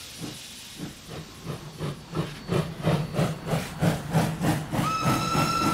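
Steam locomotive working, its exhaust chuffing in an even beat of about three to four a second that grows louder. Near the end its steam whistle sounds one steady note.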